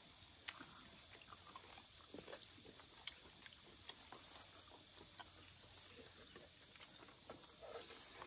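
Steady high-pitched insect chorus, crickets, with a couple of faint clicks and some soft scattered sounds underneath.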